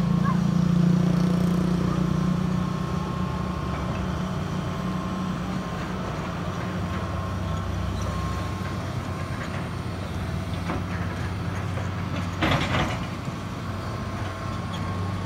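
Heavy diesel construction machinery running steadily. Its low hum drops to a deeper tone about halfway through, and there is a short burst of noise near the end.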